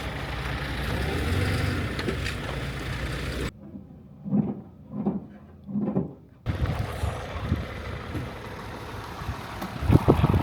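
Motor vehicle engine running under a steady rushing noise. About three and a half seconds in, the sound cuts abruptly to a quieter stretch with three short muffled low thumps, then cuts back to the steady noise, with a louder knock near the end.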